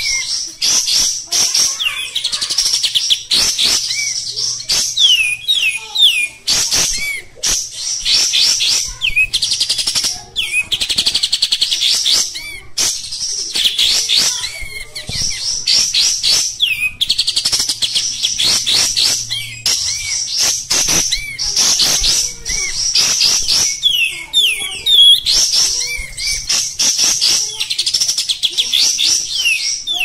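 Kapas tembak bulbul singing without pause: rapid runs of high, harsh chattering notes broken by quick upslurred whistles, the rough, full song that hobbyists call 'kasar' and 'gacor'.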